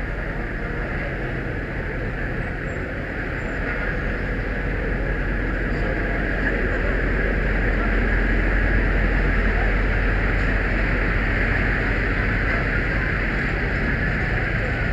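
A vehicle engine running steadily with a low rumble, growing somewhat louder a few seconds in.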